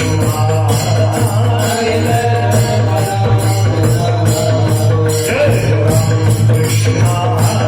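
Varkari kirtan music: a voice singing a wavering devotional melody over a steady drone, with small hand cymbals (taal) striking an even beat and pakhwaj drum accompaniment.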